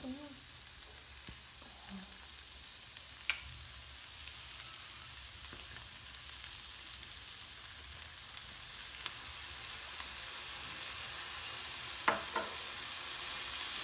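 Chicken and bell-pepper stir-fry sizzling steadily in a pan, growing slightly louder, with a few light clicks, one sharp one about three seconds in and a couple more near the end.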